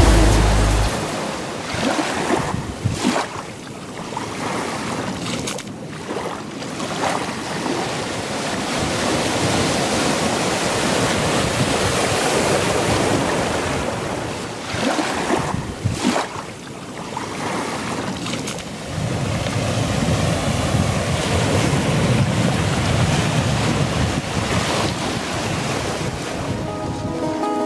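Sea waves breaking and washing onto a beach, rising and falling, with wind buffeting the microphone; the low wind rumble gets heavier about two-thirds of the way in.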